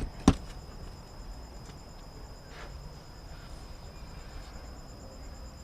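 Two sharp clicks about a third of a second apart, as parts of a large-scale RC truck are fitted by hand. Faint handling ticks follow over a steady high-pitched tone.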